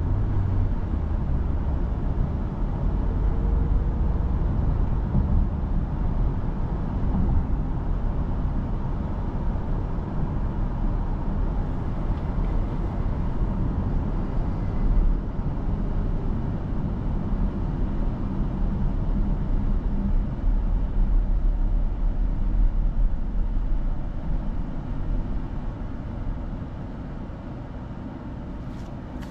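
Cabin noise of a Citroën C5 Aircross plug-in hybrid driving at road speed: a steady low rumble of tyre and road noise. It grows quieter over the last few seconds as the car slows for traffic ahead.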